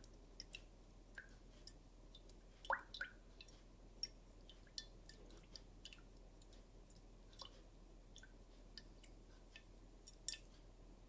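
Near silence broken by irregular small ticks and clicks, a few a second, from a glass beaker of liquid with metal relay parts inside being swirled; one louder click about three seconds in.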